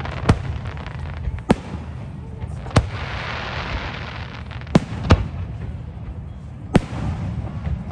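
Aerial fireworks shells bursting overhead: six sharp bangs at uneven intervals of one to two seconds, two of them close together about five seconds in, with a spell of hiss between the third and fourth bang.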